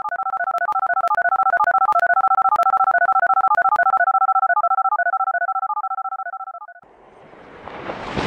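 Intro sound effect: a fast string of electronic beeps, two pitches sounding together and hopping between notes many times a second, fading away about six and a half seconds in. Then a rising whoosh swells and cuts off suddenly at the end.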